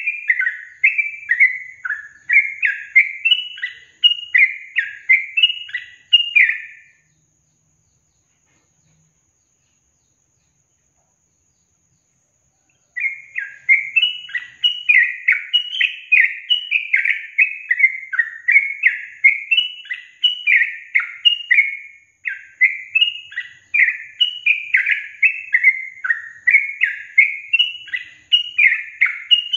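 Yellow-vented bulbul (trucukan) singing: short, bubbly chirping phrases repeated a little over once a second. It breaks off about seven seconds in for some six seconds of dead silence, then starts up again.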